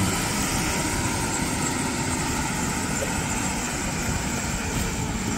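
Helicopter running on the ground just after landing, its turbine and rotor making a steady rushing noise with a thin high whine on top.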